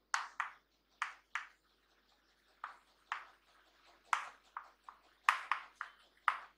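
Chalk writing on a chalkboard: about a dozen short, sharp strokes and taps at irregular intervals as letters are written.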